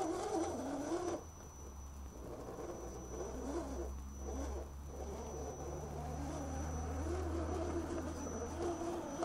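Electric motor and shaft-drive gearing of a 1:10 scale RC rock crawler whirring as it crawls over rocks, the pitch wavering up and down with the throttle.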